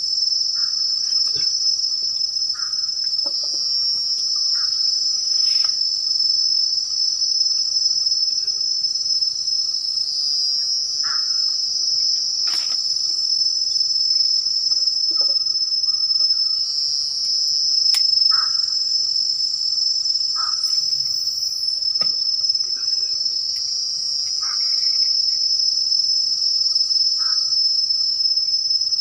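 A steady, shrill insect chorus fills the air, swelling louder every several seconds. Short, lower chirps repeat every second or two beneath it, with a few sharp clicks.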